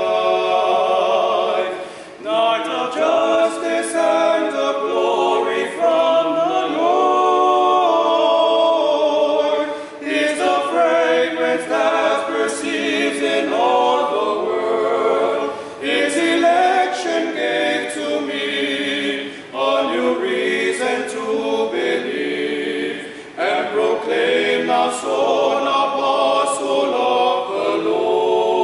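Five men singing a hymn a cappella in harmony, the voices wavering with vibrato and breaking off briefly between phrases.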